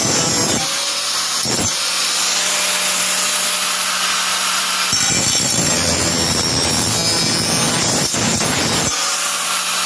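Corded electric angle grinder sharpening a dull steel lawnmower blade. The rasp of the disc grinding the edge alternates with the steady whine of the grinder running free when it is lifted off. It grinds at the start, briefly about a second and a half in, and again from about five to nine seconds.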